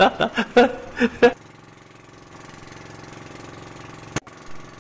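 Motorised outrigger boat's engine running steadily underway, a low, even drone with a fine regular beat. A sharp click about four seconds in.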